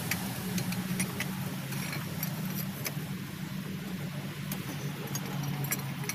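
Scattered light metallic clicks and taps of hand tools working on an Isuzu 8DC11 diesel engine during a valve-clearance tune-up, over a steady low hum.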